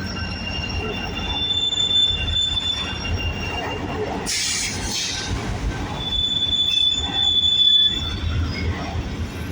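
Union Pacific double-stack container freight train rolling by with a steady low rumble. Its wheels squeal in long, high, steady tones twice, a second or so in and again around six seconds in. A short noisy burst comes near the middle.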